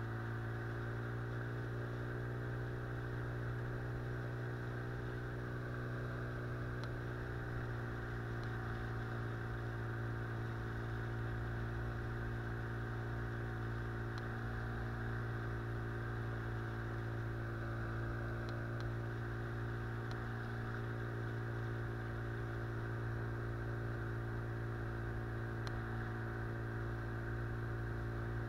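Outboard motor on an inflatable boat running at a steady speed under way, a constant even engine hum that does not change.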